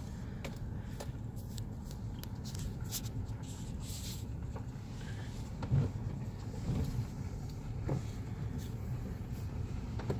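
A vehicle driving slowly on a rough dirt road, heard from inside the cabin: a steady low rumble of engine and tyres, with frequent small knocks and rattles over the bumps and a louder jolt about six seconds in.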